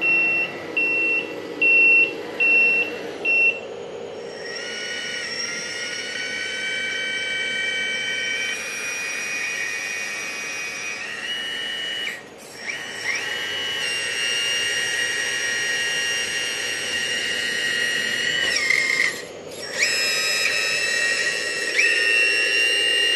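An electronic beeper on the RC dump truck sounds about twice a second for the first few seconds. Then the truck's hydraulic pump runs with a steady high whine while the dump bed tips; it cuts out briefly twice and comes back at a changed pitch.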